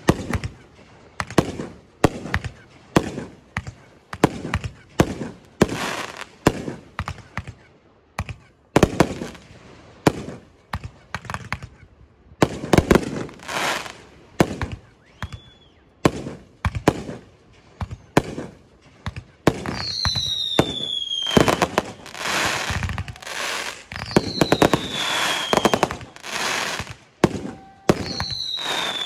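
Fireworks exploding in quick succession, several bangs a second, with crackling stretches. In the second half, high whistles falling in pitch come three times.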